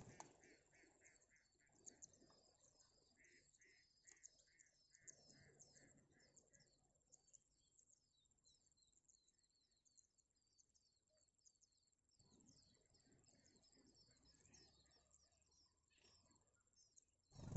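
Faint, evenly repeated chirps of nestling songbirds begging for food, about three a second, fading out about six seconds in, over a faint high insect chirring.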